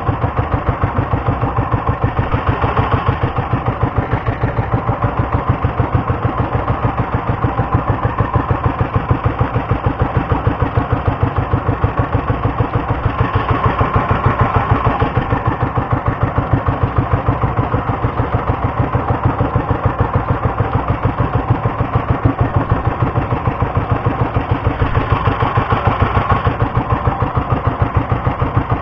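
A bangka's small engine running steadily, with a rapid, even chugging pulse.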